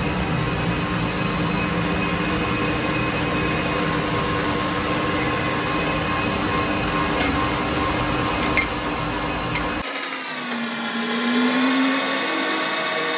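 Metal lathe running with a steel axle shaft spinning in the chuck, a steady machine noise with a constant hum. About ten seconds in the sound changes abruptly to a pitched whine that wavers slowly in pitch as the cutting tool turns the steel.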